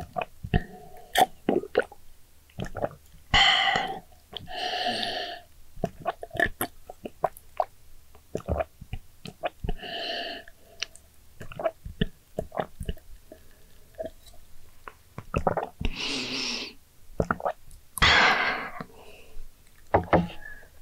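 A person eating jajangmyeon noodles: several long wet slurps, with chewing and lip-smacking clicks in between.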